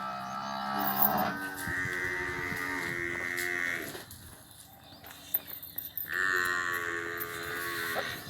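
Murrah water buffalo lowing: three long, drawn-out calls, the last starting about six seconds in.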